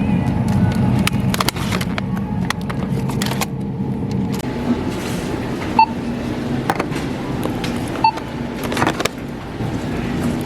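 A car running, heard from inside: a steady low engine and road hum with scattered light clicks and a few short, high beeps.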